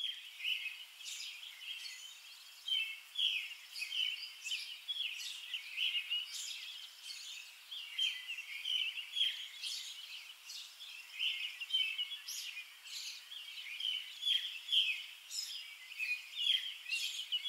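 Birds chirping: a dense, unbroken chorus of short, high-pitched chirps overlapping one another.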